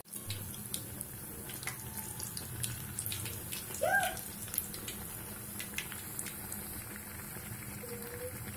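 Hot oil sizzling and crackling steadily around battered bread pakoras deep-frying in a steel kadai, with many small pops. A short pitched sound comes about four seconds in.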